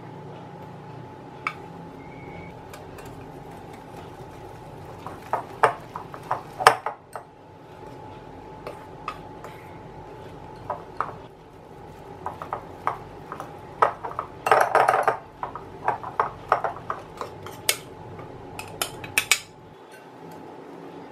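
Stainless wire balloon whisk clicking and scraping against a glass mixing bowl as flour is beaten into whipped ghee, in irregular clusters of clicks, busiest a little past the middle and again near the end.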